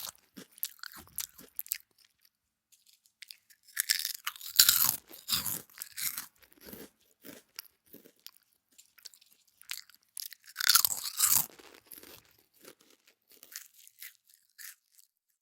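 Crisp crunching and crackling in short irregular bursts, with two denser bursts: one about four seconds in and one near eleven seconds, and scattered single crackles in between.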